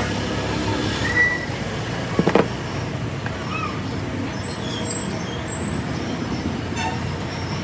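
A steady rumbling machine noise, with a brief squeak about a second in and a quick run of knocks a little after two seconds.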